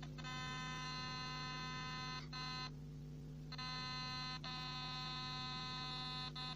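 Small speaker driven by a homemade 555 timer oscillator, giving a steady electronic buzz. The buzz breaks off for a moment about two seconds in, stops for most of a second around three seconds, then comes back until it cuts off near the end, as the capacitor that sets its pitch is held in by hand.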